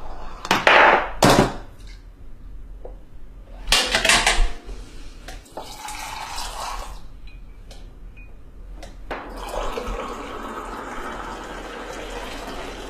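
Water running and pouring, with dishes clattering: loud bursts about a second in and again about four seconds in, then a steady stream from about nine seconds in.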